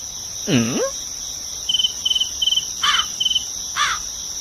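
Insects chirping: a steady high-pitched buzz with short cricket-like chirps repeating a little over twice a second. A low swooping call comes about half a second in, and two brief descending calls come near the end.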